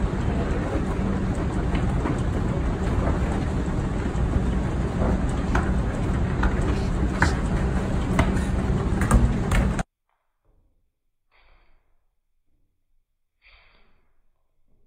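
Escalator running with a steady rumble and hum, with several sharp knocks of a soccer ball against its metal steps. About ten seconds in it cuts off abruptly to near quiet, broken by two soft short sounds.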